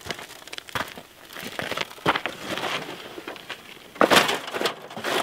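Footsteps crunching on loose gravel and dry soil while a heavy plastic office printer is carried. About four seconds in comes the loudest part, a gritty scrape and crunch as the printer is set down on the ground.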